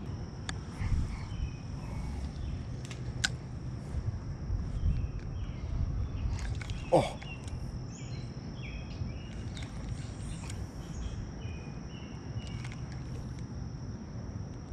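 Outdoor ambience: a steady low rumbling noise and a thin, steady high-pitched hum, with a sharp click about three seconds in and a short pitched sound about seven seconds in.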